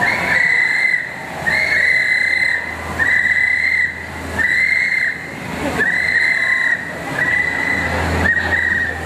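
A whistle blown in a steady rhythm of about seven long, even blasts, each close to a second long with short gaps between, over a low steady hum.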